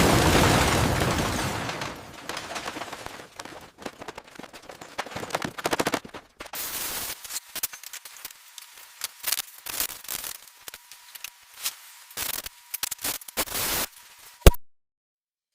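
Renovation work sounds: a loud rush of noise for the first two seconds, then a fast, irregular run of sharp knocks and bangs, ending in one loud bang near the end.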